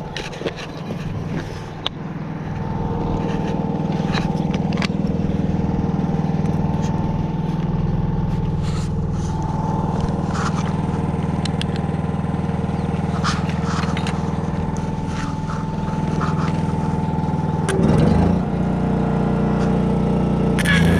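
Vehicle engine idling steadily, with scattered light clicks and knocks.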